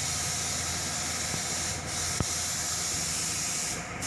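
A steady hiss over the low hum of the parked FAW tractor unit's diesel engine idling, with one sharp click about two seconds in.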